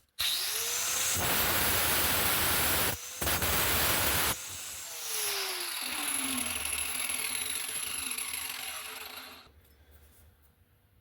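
A cutting wheel on a power tool spins up with a rising whine and cuts into the knife's tang in two grinding passes, about two seconds and then one second long. The motor is then switched off and coasts down with a falling whine, stopping near the end.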